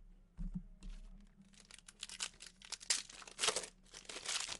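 Foil wrapper of a 2018 Panini Prizm football card pack being torn open and crinkled by hand: an irregular run of crackles that grows louder over the last second and a half.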